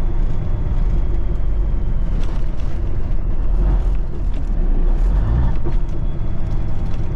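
1983 Kenworth K100 cabover truck under way, heard inside the cab: its diesel engine and road noise make a steady low rumble.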